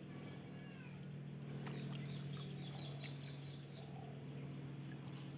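Faint short animal calls that rise and fall in pitch, a few in the first second and more around the middle, over a steady low hum.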